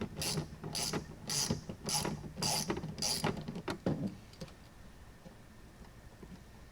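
Socket ratchet worked back and forth on a bolt, a short burst of pawl clicks on each return stroke, about two a second, stopping about four seconds in.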